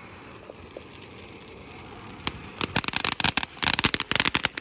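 Ground fountain firework spraying sparks with a steady, slowly swelling hiss. About two seconds in, it breaks into loud, rapid crackling pops that come several times a second.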